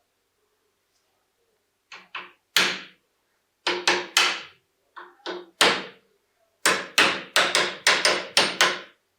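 Hammer blows on metal, about seventeen in uneven groups, each ringing briefly.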